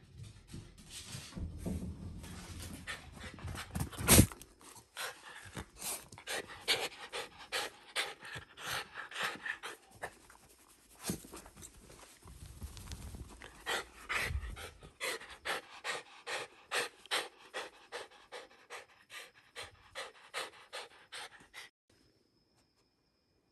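Shiba Inu panting fast and rhythmically, at about three breaths a second in the later part, stopping suddenly near the end. A single sharp thump about four seconds in is the loudest sound.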